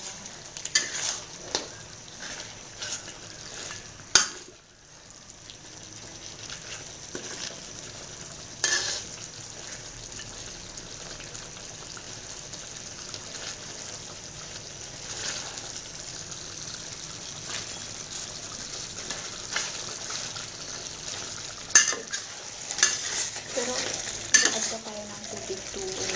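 A metal spoon stirring chicken curry in a stainless steel pan, with sharp clinks of spoon on pan now and then, over a steady sizzle of the curry cooking. The clinks come thicker near the end.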